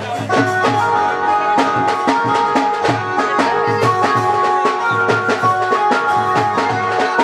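Music with a steady drum beat under held melody notes.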